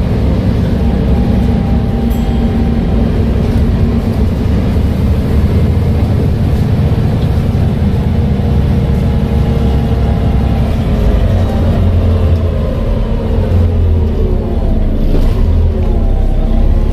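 Volvo B7TL bus with a six-cylinder diesel and Voith automatic gearbox running under way: a steady engine drone with a thin gearbox whine on top. Partway through the whine falls slowly in pitch as the bus slows, then dips and rises again near the end.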